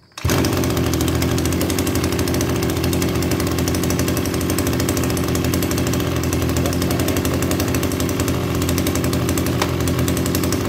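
Maruyama MBS328 backpack brush cutter's 32.8 cc two-stroke engine catching at once on a pull of the recoil starter, then idling steadily.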